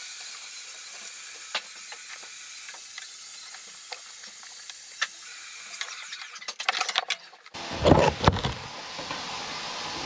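Water hissing from a tap, steady, with scattered small clicks. About seven and a half seconds in it cuts off, followed by a few louder, deeper knocks.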